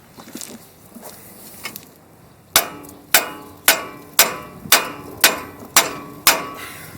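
Eight ringing hammer blows, about two a second, striking a steel nut left flush on the end of a stud in a car's front steering spindle, to knock the stud's taper loose from the spindle.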